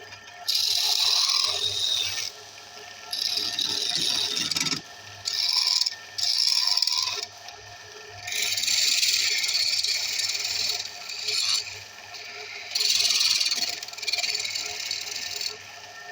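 Wood lathe motor running with a steady hum while a turning tool is pressed against the spinning wood in about seven scraping passes of one to two seconds each, with short gaps between them.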